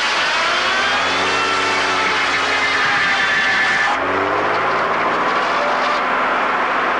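Sawmill machinery running loud: the saw and its engine, with pitch that sags and then climbs back as the load changes. About four seconds in the sound changes abruptly, the hiss drops away and a fresh rising sweep begins.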